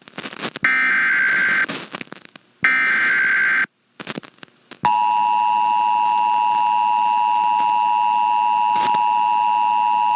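Emergency Alert System broadcast over radio. The second and third SAME header data bursts play, each about a second of harsh buzzing warble, separated by short crackly gaps. About five seconds in, the steady two-tone EAS attention signal starts and holds, marking the start of a severe thunderstorm warning.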